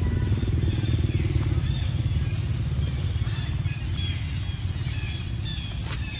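Steady low rumble of an engine running nearby, with faint bird chirps above it and a single sharp click near the end.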